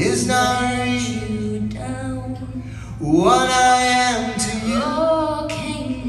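Male and female voices singing a duet with acoustic guitar accompaniment, long held notes gliding between pitches, over a steady low hum.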